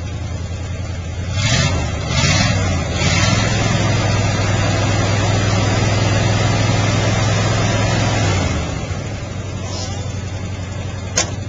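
Ford F-150's 351M/400 V8 running cold after a start. It is revved a few times about a second in, held at higher revs, then drops back to a lower idle about two-thirds of the way in. A truck door slams shut near the end.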